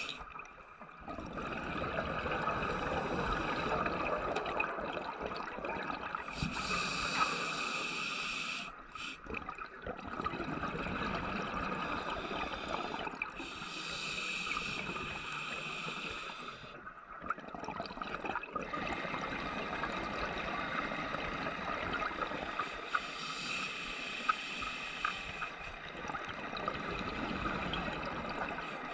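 Underwater sound on a scuba dive: a continuous watery hiss and gurgle of bubbles that swells and eases every several seconds, with a few brief lulls.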